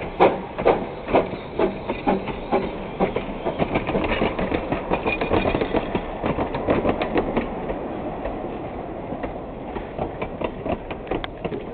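Narrow-gauge train wheels clacking over the rail joints in a quick, uneven series of clicks over a steady rumble. The clicks grow fainter near the end as the train moves away.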